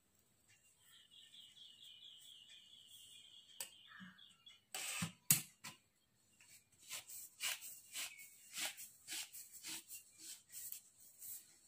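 Plastic broom bristles swishing as the bundle is shaken and fluffed out. Two louder swishes come about five seconds in, then a run of short swishes about two a second.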